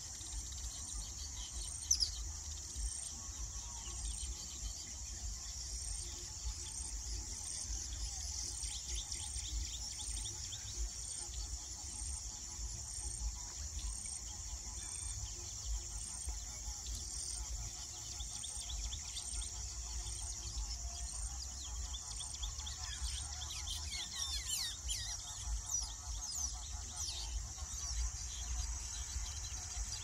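A steady, high-pitched insect chorus, with weaver birds chirping and chattering over it. The chattering is busiest in the last third.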